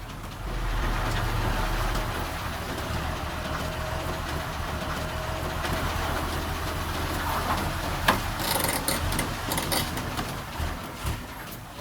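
Diesel engine of heavy earthmoving equipment running steadily. It picks up about half a second in. A sharp metallic clank comes about eight seconds in, followed by a few lighter knocks.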